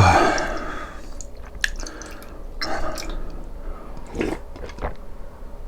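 Wet eating sounds close to the microphone: a person chewing and sipping food, with a few separate smacks and slurps. A loud breathy sound comes right at the start.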